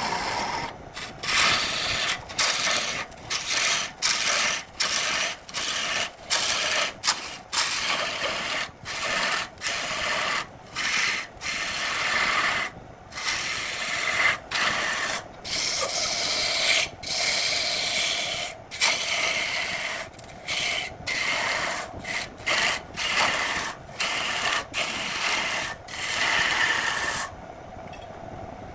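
A turning tool cutting spinning wood on a wood lathe. It makes a rough scraping hiss in short strokes, broken by brief gaps a little more than once a second. Near the end the cutting stops and only a quieter steady running sound is left.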